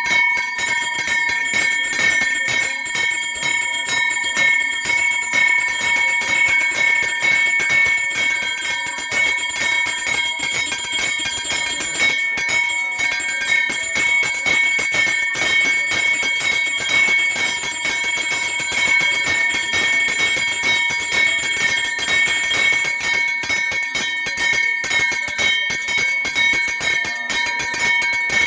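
Brass puja hand bell rung rapidly and without pause, a steady ringing tone held under a fast clatter of clapper strikes.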